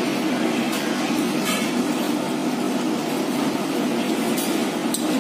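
Steady background hum of a restaurant dining room, with a few faint short clicks.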